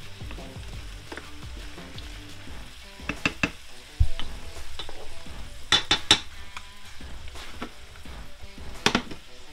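Chopped onions and celery sizzling as they sauté in melted butter in a pan, with a utensil stirring and clinking against the pan in several short clusters and one dull knock about four seconds in.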